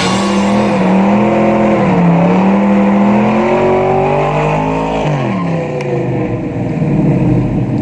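Car engine running hard, its pitch climbing slowly, then sliding down steeply about five seconds in.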